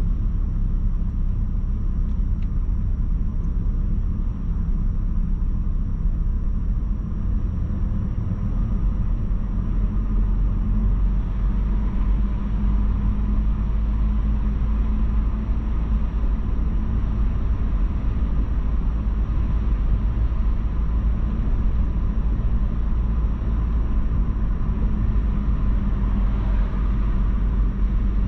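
A car driving along: a steady low rumble of engine and road noise, growing a little heavier about eight seconds in.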